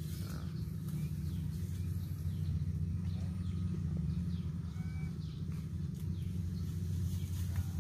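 Steady low drone of a distant rice combine harvester's engine, with a few short, faint bird chirps over it.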